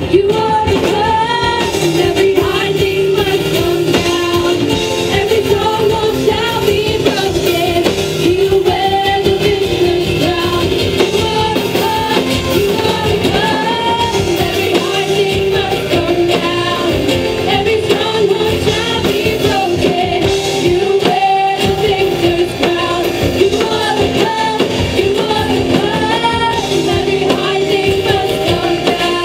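Live worship song: women singing lead vocals over a band accompaniment.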